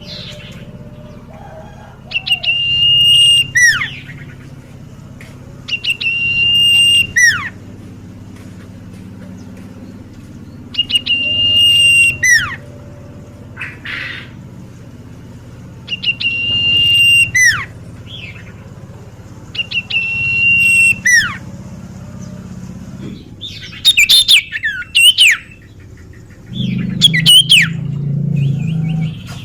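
Common iora (cipoh) singing a repeated phrase, a long held whistle that drops away in a quick falling note, about every four to five seconds. Near the end the song turns to quicker, more broken phrases.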